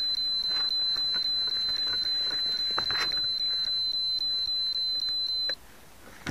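Steady, high-pitched electronic tone from the downed quadcopter's onboard electronics, with faint rustling of maize leaves; the tone cuts off suddenly about five and a half seconds in.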